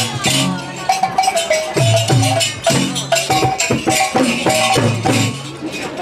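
Traditional Dayak Maanyan dance music: rhythmic percussion with short repeated pitched notes and a steady rattling shake. It fades out near the end.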